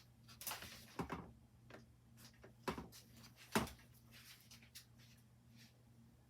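Faint steady hum of a running 1982 Casablanca Four Seasons ceiling fan, broken by a handful of sharp clicks and knocks, the loudest about three and a half seconds in.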